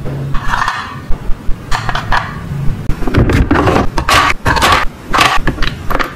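Plastic toy spatula and frying pan tapping and scraping, then a quick run of sharp clacks as ice cubes are set with plastic tongs into a toy's plastic drawer.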